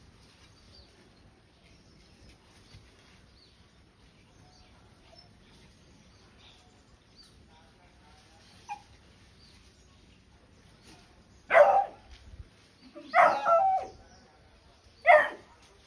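A beagle barking three times near the end, the middle bark the longest, after a stretch of faint background with a few bird chirps.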